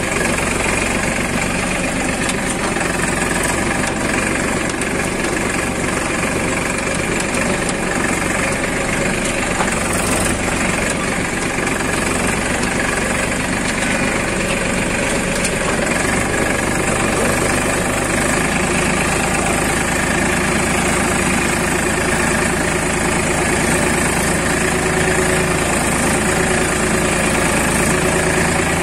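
Escort tractor's diesel engine running steadily under load as it pulls a disc plough through soil.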